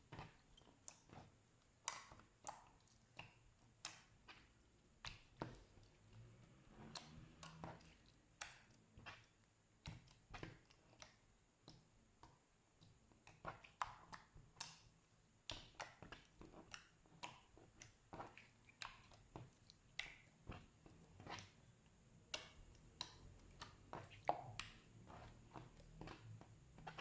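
Slime being handled, giving a run of small sharp pops and clicks, about one or two a second.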